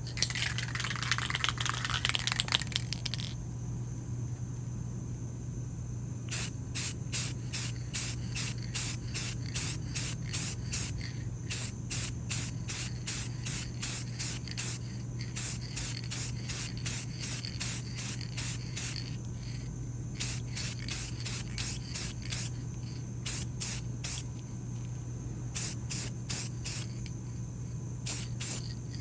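Spray paint hissing as high gloss tractor green is sprayed onto the ratchet body: one longer spray for about three seconds at the start, then many short quick bursts, about two or three a second, in runs with brief pauses.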